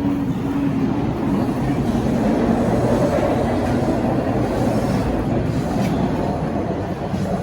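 A train running on the tracks at the station: a steady, loud rumble.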